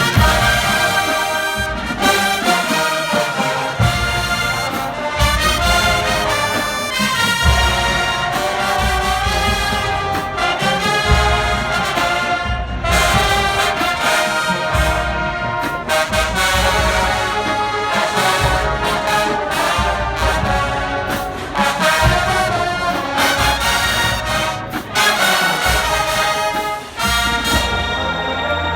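A full marching band brass section of trumpets and trombones playing a loud melody together, over heavy drum hits in a steady beat.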